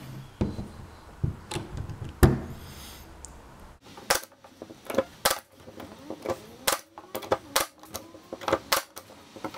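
Nail gun driving nails through thin plywood into the edge of a wooden frame: a series of sharp clacks, the loudest about two seconds in, followed by quicker, lighter clicks in the second half.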